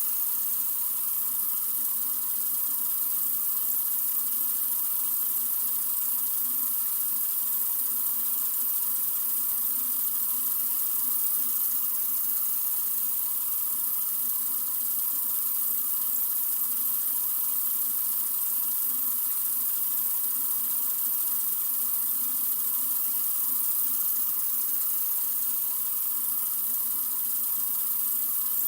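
Sink faucet running in a steady, unbroken stream: an even, bright hiss of water splashing into the basin.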